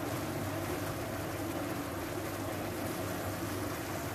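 Spinach simmering uncovered in a pan on full flame: the water it has released bubbles and sizzles with a steady noise.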